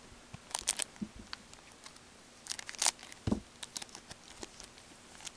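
Hockey card pack being opened by hand: the wrapper crinkling and tearing in short crackles, with the cards clicking as they are handled. A dull thump comes a little past three seconds in.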